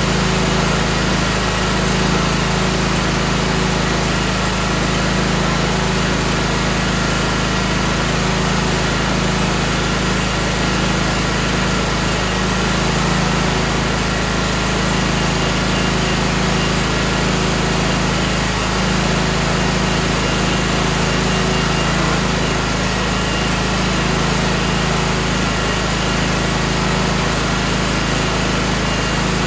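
Tractor engine running steadily at an even speed, with no revving or change in pitch.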